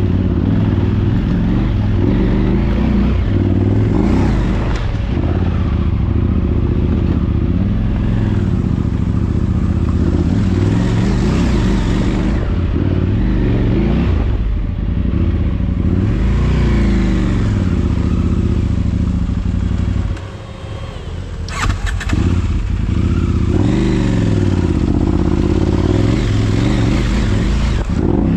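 Motorcycle engine running under way, its pitch rising and falling as it revs up and down. It eases off for a moment about twenty seconds in, with a few clicks, then picks up again.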